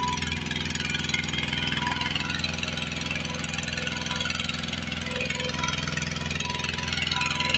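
Kubota two-wheel hand tractor's single-cylinder diesel engine running steadily while it pulls a trailer loaded with cassava through mud.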